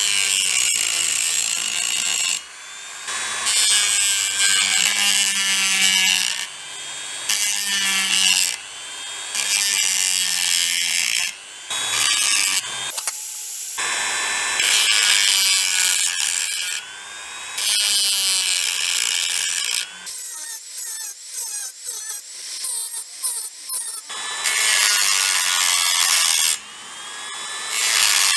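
Handheld rotary tool with a small abrasive disc grinding cast metal, in runs of a few seconds with short pauses between them and a stretch of short, quick touches about two-thirds of the way through.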